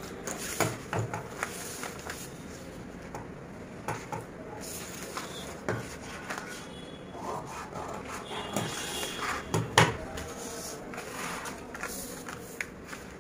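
Long tailoring scissors snipping through stiff paper pattern sheet, with the paper rustling and sliding on the table between irregular cuts. One sharper click stands out about ten seconds in.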